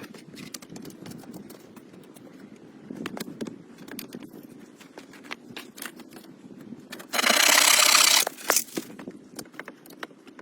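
Walking in woodland: scattered crunching steps and crackles, with a loud scraping rustle lasting about a second, starting about seven seconds in.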